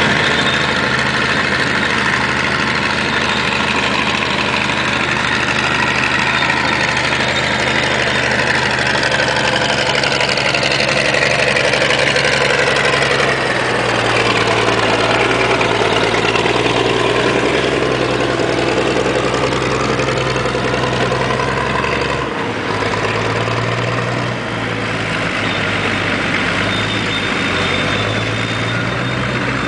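Heavy diesel engine of a LeTourneau Super C CarryAll pan scraper running steadily under a higher, gliding whine. Its note shifts about halfway through and again about two-thirds of the way in.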